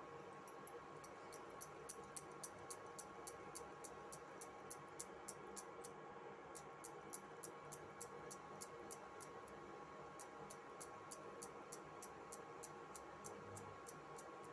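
Faint, fast, regular ticking, about three ticks a second, over a low steady hum.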